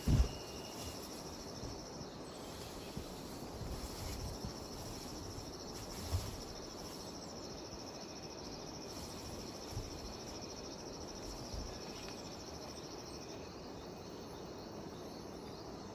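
Cicadas buzzing in a steady high-pitched drone that cuts off near the end, over a soft outdoor hiss. A few short low thumps sound through it, the loudest right at the start.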